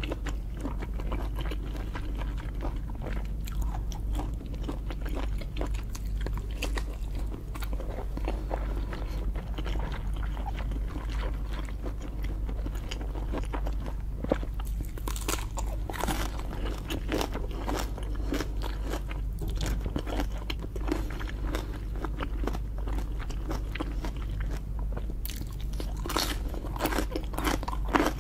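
A person eating lobster: continuous biting, chewing and crunching, with scraping in between. Clusters of sharper cracks come about halfway through and again near the end.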